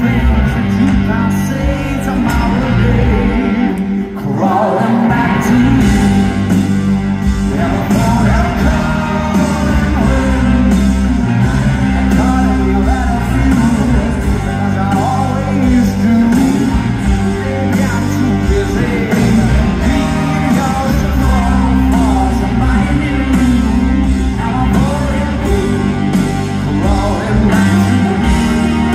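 Rock band playing live, with electric guitars, bass, drums and a sung lead vocal. The band drops out briefly about four seconds in, then comes back in.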